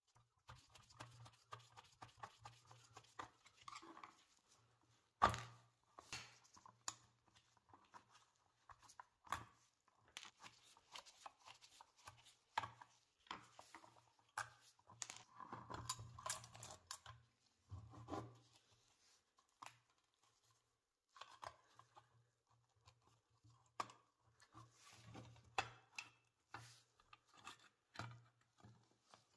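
Hands taking apart an old brass toaster's base with a screwdriver: scattered metal clicks, scrapes and taps as screws and a threaded rod are worked loose, with one sharper knock about five seconds in.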